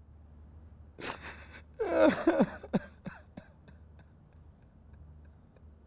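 A man weeping: a sharp catch of breath about a second in, then a loud breathy cry that wavers and falls in pitch, followed by a few short sniffs.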